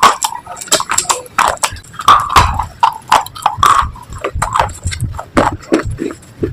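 Close-miked biting and chewing of brittle slate pieces: a fast, irregular run of sharp cracks and crunches.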